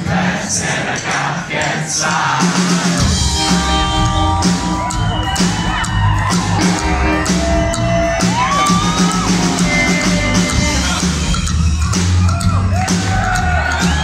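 A rockabilly band playing live on electric guitar, upright bass and drums, with the crowd whooping and shouting.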